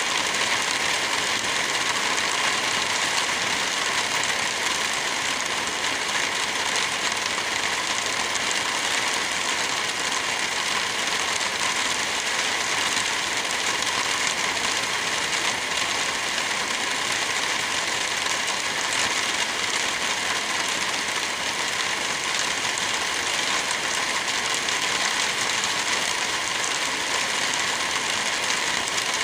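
Steady rain falling as an even hiss, with a fireplace crackling. No thunder breaks through.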